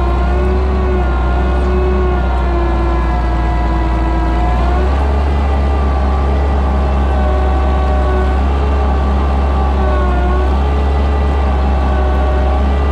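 Oliver 77 tractor's six-cylinder engine running under load as it pulls a plow through the soil. Its pitch shifts about five seconds in and dips briefly near ten seconds as the load changes.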